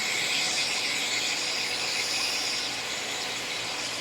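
Hot air rework station nozzle blowing a steady hiss of hot air on high airflow, heating a shield on a phone logic board to desolder it. The hiss eases a little about two-thirds of the way through.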